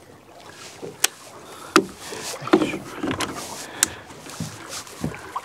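Sharp, irregular clicks and knocks of fishing rods and tackle being handled on a small boat, a rod being worked in its gunwale rod holder, with a few duller thuds between them.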